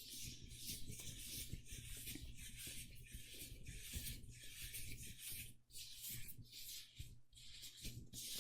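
Close-miked rubbing strokes, even and regular at about two a second.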